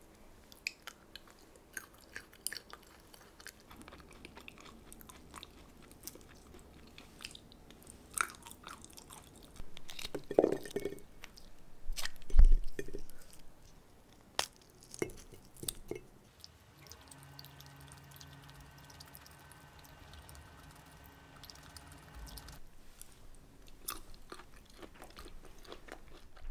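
Fresh green pea pods being split open by hand: a scattered series of crisp snaps and cracks as the pods break. A louder thump comes about halfway through.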